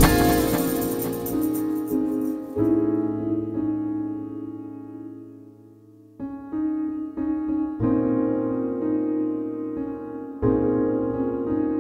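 Background music: keyboard chords with a piano sound, each struck and left to ring and fade. The chords die away to a low level about six seconds in, then fresh chords come in, struck again near eight and ten seconds.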